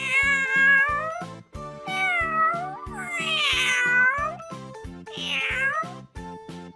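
Domestic cat meowing four times, with drawn-out calls about a second apart, over background music with a steady beat.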